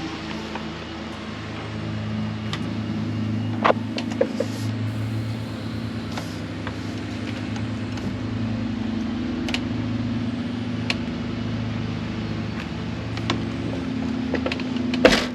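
Camper's fresh-water pump running steadily with a droning hum as it refills the water heater tank that was drained for the anode rod change; it keeps running until the system is primed. A few sharp clicks sound over it, about four seconds in and near the end.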